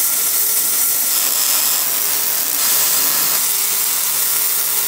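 Electric arc welder running a continuous bead on steel plate, a steady unbroken hiss.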